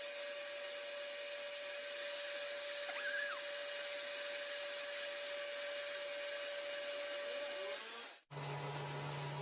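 A machine-shop motor running with a steady whine and hiss. Just over eight seconds in it cuts off sharply and gives way to a different, lower steady hum.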